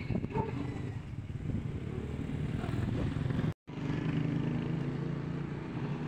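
A vehicle engine running steadily with a low hum. The sound drops out for a moment about three and a half seconds in, then the engine continues.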